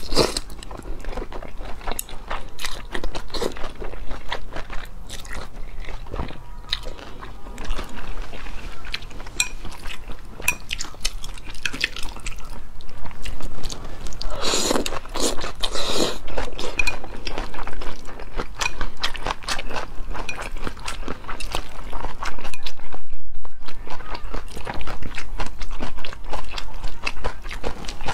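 Close-miked eating: a woman slurping wide mianpi noodles and chewing them with crunchy cucumber and carrot shreds, with many small wet mouth clicks. Two louder slurps come about halfway through.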